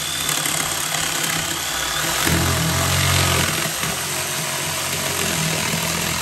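Corded jigsaw running at speed, its blade sawing through plywood to round off a corner. The cut sounds heavier for about a second from roughly two seconds in.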